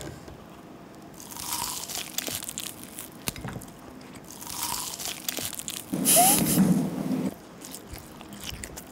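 Close-miked biting and chewing of a whole roasted pork belly (tong-samgyeopsal): its browned, crisp skin crunches and crackles in several bursts, the loudest about six seconds in.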